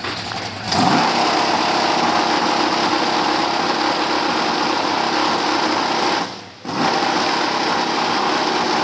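Fire truck engine driving its pump at full throttle while the hose throws water: a loud, steady high-revving run that rises sharply under a second in and briefly drops out about six seconds in.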